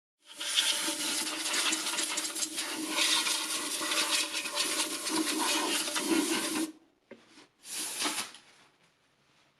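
Liquid pouring and splashing for about six and a half seconds, stopping suddenly, then two short splashes: the machine's oil reservoir being flushed out with petrol.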